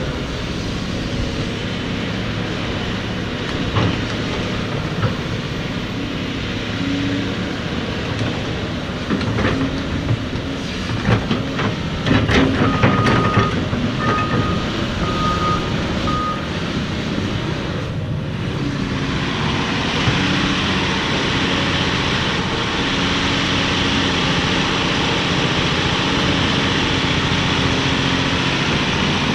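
Cat 349F excavator's C13 diesel engine running steadily under working load. A flurry of knocks and clanks comes partway through, then four short, evenly spaced alarm beeps. After a break, the engine and hydraulics carry on with a steadier, brighter rush of noise.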